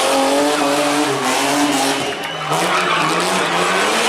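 Rally car engine running hard, its pitch wavering. About two seconds in it drops briefly in level and pitch, then climbs again.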